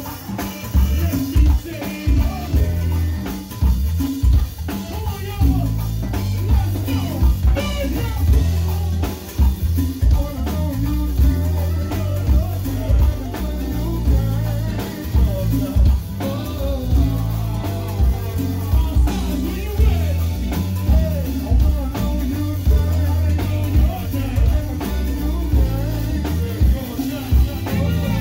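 Live go-go band playing: a heavy bass and drum-kit groove with sharp drum hits and hand percussion, electric guitar, and voices singing over it.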